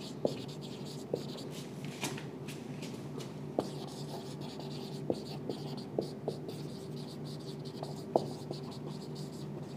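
Marker pen writing on a whiteboard: short, irregular squeaks and taps of the felt tip as letters are written, over a faint steady hum.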